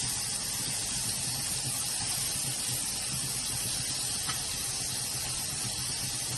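Chicken skin deep-frying in hot oil: a steady sizzle, with a faint crackle about four seconds in.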